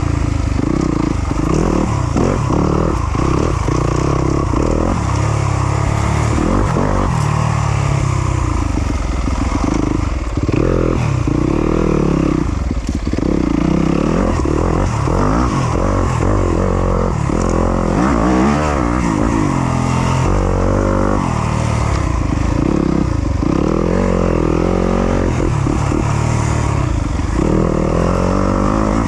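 Yamaha YZ250FX 250cc four-stroke single-cylinder dirt bike engine running under constant throttle changes, its pitch rising and falling every second or two as it revs up and drops back.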